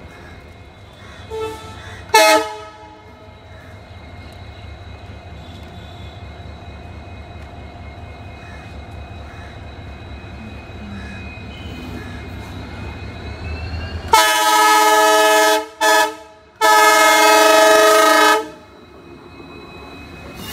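WDP-4D diesel locomotive's engine running as it approaches, its low rumble growing louder, with a short toot of the air horn about two seconds in. Near the end the multi-tone horn sounds loudly three times: a long blast, a brief toot, then another long blast.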